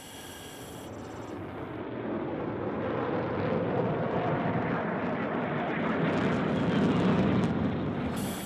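Jet fighter flying past: a rushing engine noise that builds over several seconds, peaks near the end and then starts to fade.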